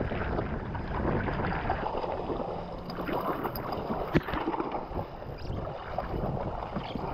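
Wind buffeting the microphone over choppy sea water sloshing against a jetski hull, with one sharp knock about four seconds in.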